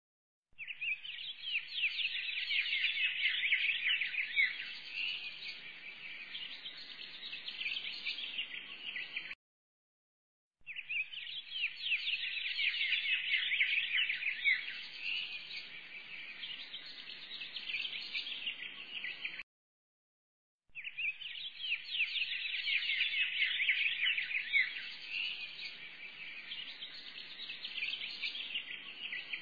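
Birds chirping and twittering densely: a recording of birdsong about nine seconds long, played three times over with a brief total silence between each playing.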